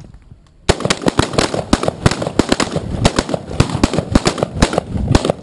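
Rapid, overlapping gunfire from a line of AR-15 carbines shooting a failure drill: each shooter fires a controlled pair to the chest, then a single headshot. The shots start about a second in and run close together until just before the end.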